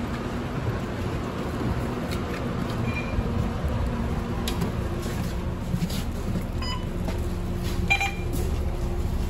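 Volvo B9TL double-decker bus's 9.4-litre Volvo D9B diesel running with a steady low hum, heard from inside the bus. Short electronic beeps sound about two-thirds of the way through and again a little later.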